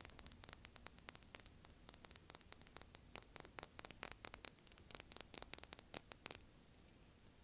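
Faint, rapid tapping of fingers on a scallop shell, many quick light clicks over a steady hiss, thinning out near the end.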